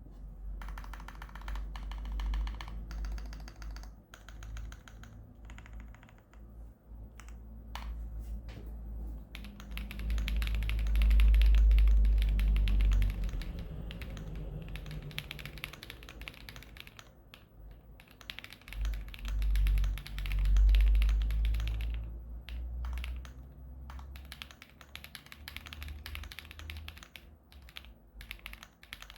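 Fast typing on a Zoom65 custom mechanical keyboard with lubed Dark Jade switches on a flex-cut PCB and polycarbonate plate with full foam, a dense run of keystroke clacks broken by brief pauses. A deep low rumble swells up twice in the middle, louder than the keystrokes.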